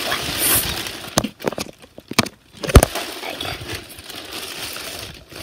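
Plastic mailer bag rustling and crinkling as it is handled, broken by several sharp knocks in the middle, the loudest about halfway through.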